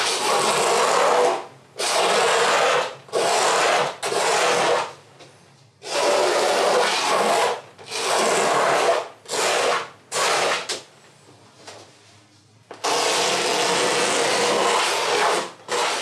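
Razor blade scraping oil paint off a canvas, lifting the dark layer to leave light lines: a series of rough scraping strokes, each a second or so long, with a pause of about two seconds before a longer stroke near the end.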